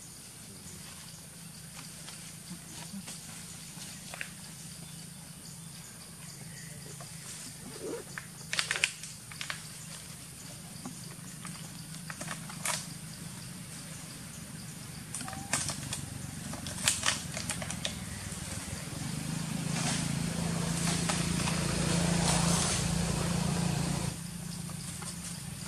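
Scattered rustles and snaps in dry leaf litter as macaques move and handle things, over a steady low hum. Near the end a louder rushing noise builds for a few seconds, then cuts off suddenly.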